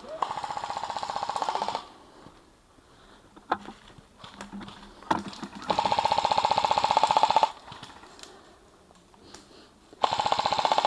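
Airsoft gun firing full-auto in three bursts of rapid clicking rattle: a burst of about a second and a half at the start, a longer one of nearly two seconds in the middle, and a short one near the end.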